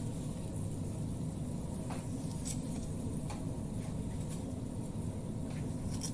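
Steady low rumble of a kitchen exhaust fan, with a handful of light clicks from metal tongs working food in a frying pan.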